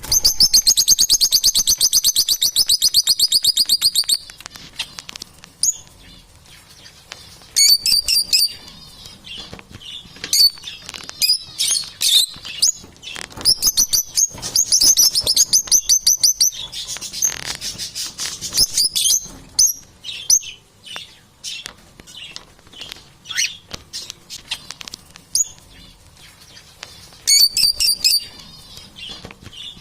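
Pet parrots chirping and singing: a fast, high trill for about the first four seconds, then bursts of high chirps and warbling notes with short pauses between.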